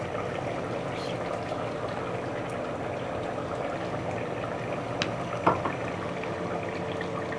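Chicken curry bubbling steadily in a pot on the stove as tomato puree is added, with a couple of light clicks about five seconds in.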